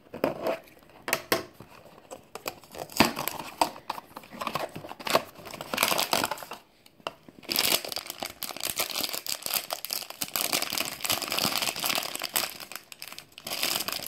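Cardboard blind box being opened, with scattered clicks and scrapes. After a short pause about halfway through, there is steady crinkling and tearing of a foil bag as it is pulled open.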